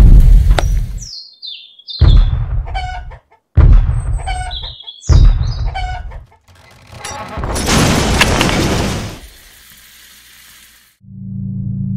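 Chicken clucking, with short high chirping calls, over a series of heavy low thuds about a second and a half apart; near the end comes a rushing noise lasting about two seconds.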